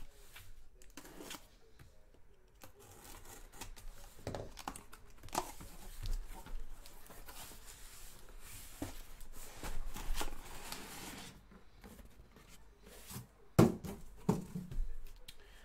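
Taped cardboard shipping case being opened: packing tape tearing and cardboard scraping and rustling as the case is slit and pulled apart, with scattered clicks. Near the end come several sharp knocks as the sealed card boxes are taken out and set down in a stack.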